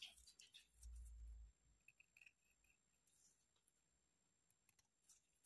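Near silence, with a few faint short clicks of a small blade shaving a wooden toothpick, mostly in the first two seconds.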